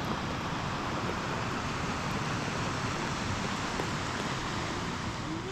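Steady rain falling: an even, continuous hiss.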